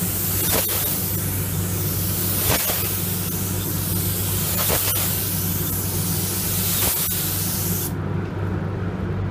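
Paint spray gun hissing steadily as it sprays, with a faint tick about every two seconds, and cutting off suddenly about eight seconds in. A steady low hum runs underneath.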